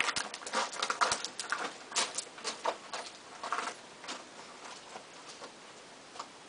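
Footsteps crunching on loose gravel, walking away and fading out by about four seconds in.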